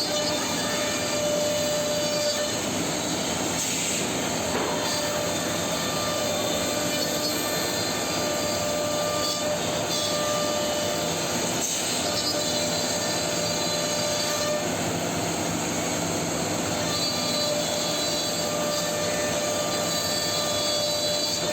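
Multi-head CNC router running, its spindles whining at steady high pitches over the continuous noise of the bits cutting solid wood panels.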